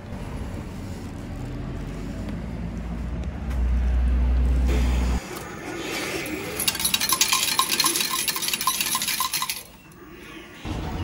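Coin change machine paying out coins into its metal tray: a rapid run of clinks lasting about three seconds, starting a little over halfway through and stopping suddenly. Before it, a low rumbling outdoor noise that gets louder for a second or two before a cut.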